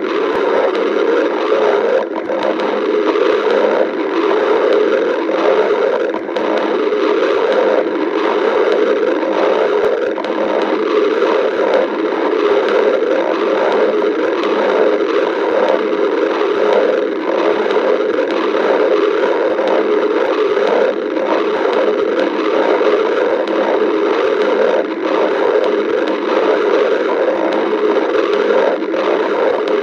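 A hungry stomach growling and gurgling, continuous and without pauses.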